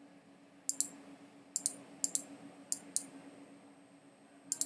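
Computer mouse clicking, about six sharp clicks at uneven intervals, over a faint steady low hum.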